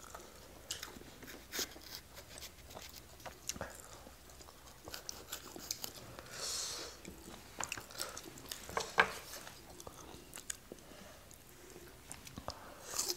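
Close-up chewing and crunching of raw red bell pepper, with scattered small crisp clicks and mouth smacks. There is a brief hiss about six and a half seconds in.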